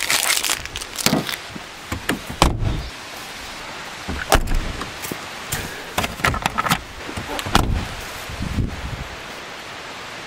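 Packing up gear at a car: scattered knocks, clicks and rustles of bags and items being handled, with several sharper thuds like a car door or hatch.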